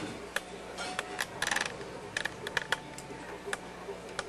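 Irregular light clicks and taps, about a dozen, with a quick cluster about a second and a half in, over a low steady hum.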